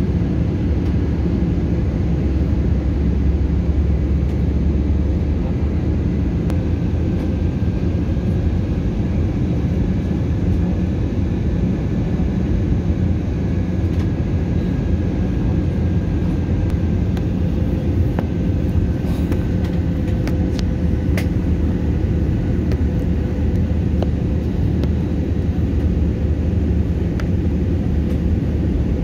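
Airliner cabin noise on the approach to land: a steady, loud low rumble of the engines and airflow, with a faint whine that drifts slightly lower in pitch about midway and a few faint clicks.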